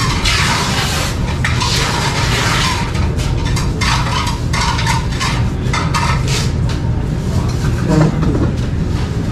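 Spoon scooping kabsa rice from a plate, and chewing, heard as irregular clicks and short bursts of rushing noise over a steady low rumble.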